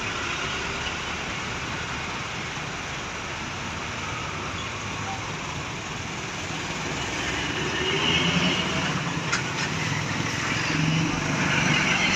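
Road traffic passing by: a steady rush of tyre and engine noise that swells as vehicles go by, about two-thirds of the way in and again near the end.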